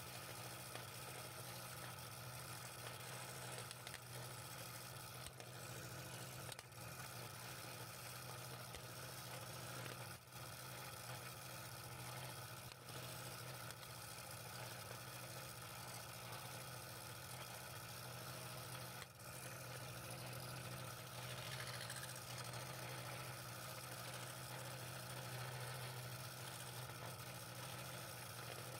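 Scroll saw running steadily, its fine reciprocating blade cutting through thin wood, with a constant low motor hum that dips briefly a few times.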